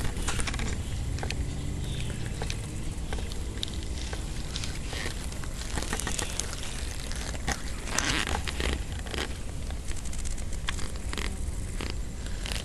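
Handling noise: dry grass stems brushing and crackling against a handheld camera's microphone, with scattered sharp clicks and a steady low rumble.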